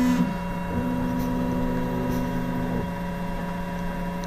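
UP Box 3D printer's stepper motors whining at a steady pitch as the machine moves during its automatic bed-levelling routine: a brief run at the very start, then another lasting about two seconds, over a steady machine hum.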